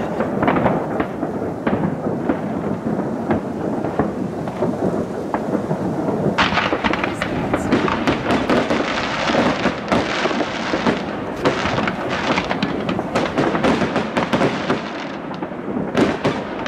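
Aerial fireworks display: a continuous rumble of shell bursts echoing like thunder, thick with crackling. The crackle grows denser and sharper from about six seconds in and eases off near the end.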